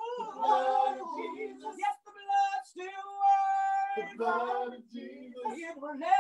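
A woman's voice singing a slow melody in sustained, drawn-out phrases, with one long steady note held for over a second about three seconds in.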